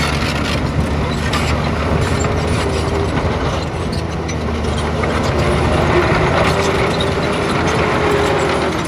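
Heavy earthmoving machine's diesel engine running with continuous metallic clattering and rattling.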